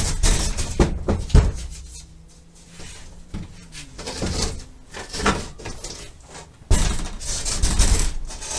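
Wooden board being handled, slid out of a wall opening and turned around: a few sharp knocks in the first second and a half, then a long scraping rustle near the end.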